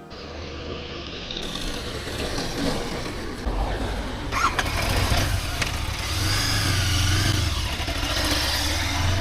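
Motorcycle engine running, a low rumble that grows stronger about three and a half seconds in, under steady outdoor road noise.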